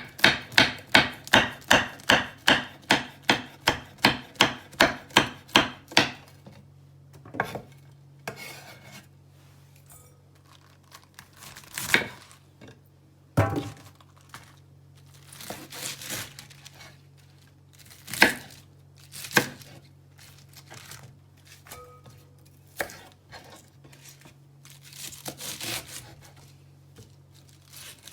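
Knife chopping on a cutting board, an even run of about three strokes a second for the first six seconds, then scattered knocks and clatter of kitchen utensils.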